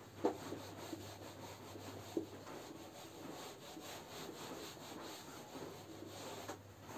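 A hand-held duster wiping marker off a whiteboard: a faint, continuous rubbing, with a light knock just after the start and another about two seconds in.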